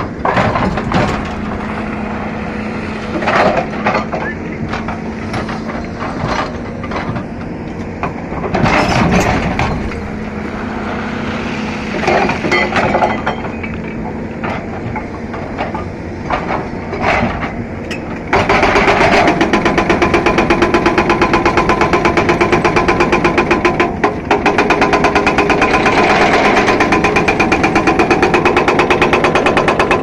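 Caterpillar 320D excavator's diesel engine running with a few irregular louder bursts. About two-thirds of the way in, its hydraulic breaker starts hammering into rock in rapid, even blows, much louder than before, and keeps going.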